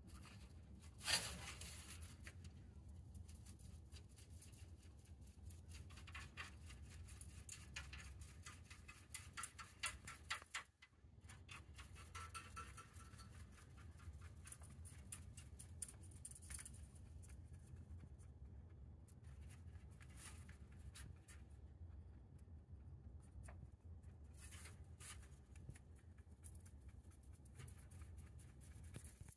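A rabbit chewing dry hay: quick, fine crunching and snipping of grass stems, going on steadily, with a louder crackle about a second in and a brief pause near the middle. A faint low hum runs underneath.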